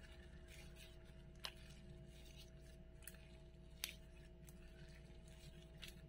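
Faint sticky clicks and pops of white slime being stretched and folded by hand, with two sharper pops about a second and a half in and near four seconds, over a low steady hum.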